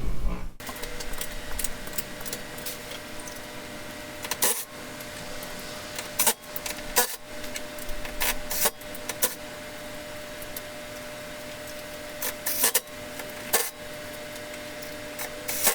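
Lug nuts and hand tools being handled: scattered sharp metallic clicks and clinks, a dozen or so at irregular intervals, over a faint steady hum.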